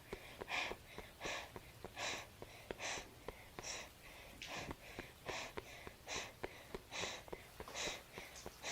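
A person panting hard and rhythmically, out of breath from running, one breath about every 0.8 seconds, with faint clicks between the breaths.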